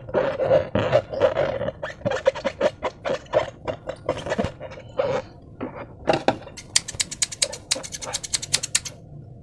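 Slime being squished by hand, with its balloon: irregular wet squelches and rubbery squeaks for the first few seconds, then a quick, even run of sharp clicking pops for about two seconds near the end.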